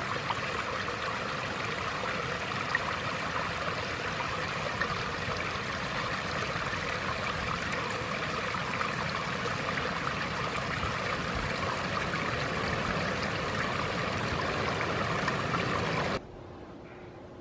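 Small waterfall of rain runoff spilling over a rock ledge: a steady rush of falling water that cuts off abruptly near the end.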